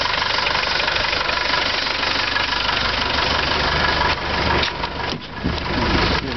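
Land Rover 200Tdi 2.5-litre four-cylinder turbodiesel idling steadily. About five seconds in the sound briefly dips and changes, then settles back.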